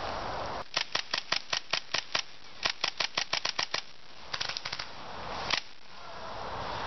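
Airsoft rifle firing in sharp single shots. A string of about nine comes at roughly five a second, then after a short pause about ten a little faster. These are followed by a quicker, quieter burst of about six and one last shot.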